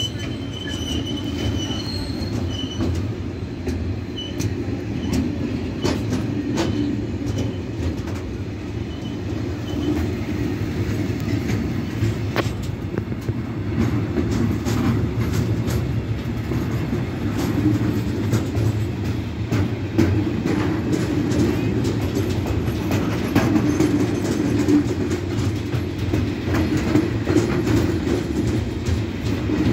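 Freight wagons of a container train rolling past at close range: a steady low rumble of steel wheels on the rails, broken by many irregular sharp clicks and clacks, growing slightly louder towards the end.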